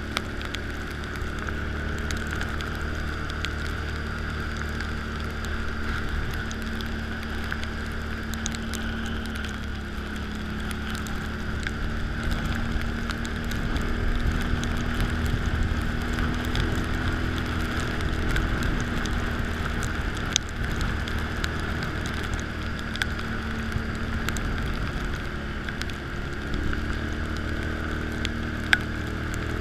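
Can-Am ATV engine running steadily while being ridden, its pitch shifting a little a couple of times, over a steady wet hiss with scattered small clicks.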